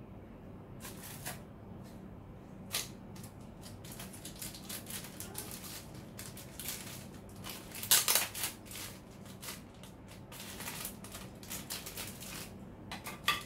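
Thin plastic bags crinkling and rustling as they are handled: a black garbage-bag drop cloth and a small clear bag holding a paintbrush. The crackles come irregularly, with a louder bunch about eight seconds in.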